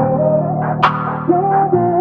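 Background music: sustained synth and keyboard notes with a sharp percussive hit about once every two seconds.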